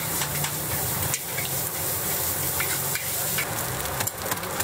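Fried rice sizzling in a hot wok as it is stir-fried, the wok spatula scraping and tossing it, with several sharp clicks of the spatula against the wok.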